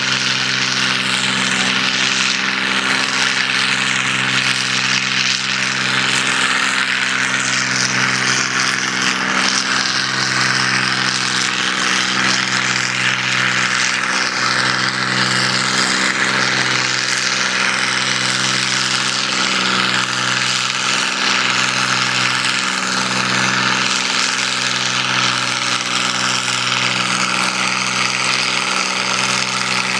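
John Deere 4010 gas tractor's six-cylinder engine running at a steady, nearly constant pitch under full load while it drags a weight-transfer sled, with a few brief dips in the drone.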